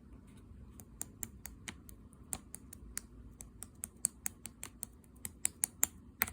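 Clear slime being pressed and poked, making a run of crisp clicking pops as air pockets burst, about four a second, the loudest near the end.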